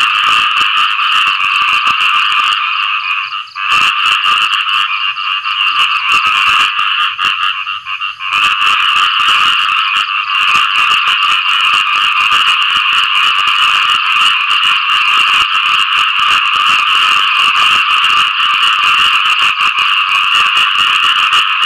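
Khiat i-mo frogs (เขียดอีโม่) calling for mates after rain: a continuous, dense, rapid croaking chorus, with brief dips about three and a half and eight seconds in.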